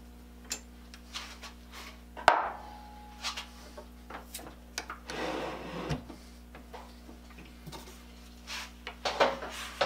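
Hand work on a stopped South Bend 9C metal lathe: scattered metal clicks and knocks as tooling and the chuck key are handled. One sharp clank about two seconds in rings briefly, a rough scraping rub follows around the middle, and there is a quick run of clicks near the end.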